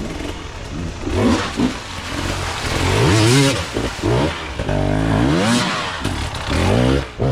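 Off-road dirt bike engine revving up and down repeatedly in short bursts, the rider working the throttle hard under load.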